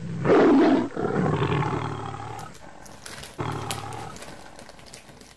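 Big cat roaring: three long roars, the first the loudest, each fading off.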